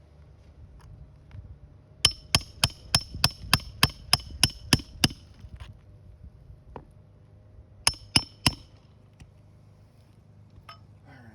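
Hammer blows on metal with a bright ring: a quick run of about eleven strikes, then after a pause three more.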